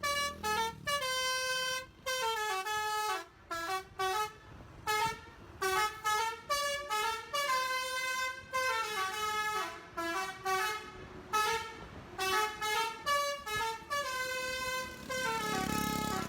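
Basuri V3 telolet horn, a multi-tone musical bus horn, playing a melody: a long string of short toots and a few held notes that step up and down in pitch with brief gaps between them.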